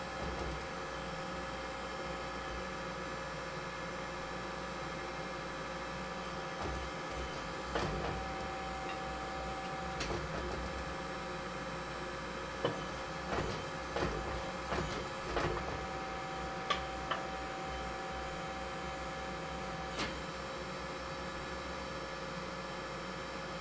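Hydraulic forging press running with a steady, many-toned hum, a higher tone joining in twice for a few seconds. About a dozen short, light knocks and clicks fall through the middle stretch.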